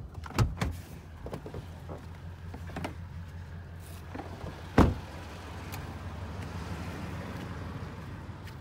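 Truck engine idling with a steady low hum. There are a few sharp clicks about half a second in, and a single loud thud just under five seconds in, typical of the truck door being shut.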